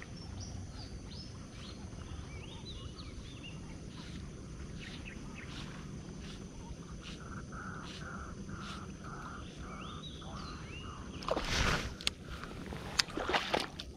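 Birds chirping over steady open-air background noise, with faint ticks and a pulsing trill partway through. About eleven seconds in, and again near the end, there is louder handling noise from the fishing rod and baitcasting reel.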